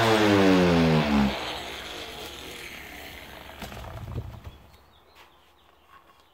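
Palm sander with a shirt over its pad, used for buffing paste wax, switched off: its motor whine falls steadily in pitch as it spins down over about a second, then a hiss fades away.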